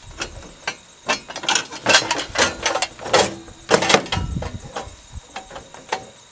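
Metal clanks, clicks and rattles of a metal conduit fitting and steel electrical boxes being handled and fitted together, with loose tools knocking about on a truck bed. The knocks come in an uneven run, thickest in the middle.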